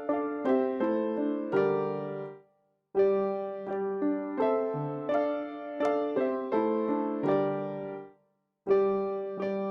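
Piano playing short phrases of notes and chords that ring and fade away, broken by two brief pauses.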